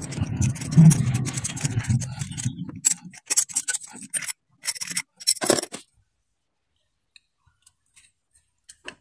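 A T-bar spark plug socket wrench scrapes and clicks against the metal of the plug well as it is turned to unscrew a spark plug that is not yet fully loose. The sound is rough rubbing at first, then a run of separate sharp clicks and scrapes, and it stops about six seconds in.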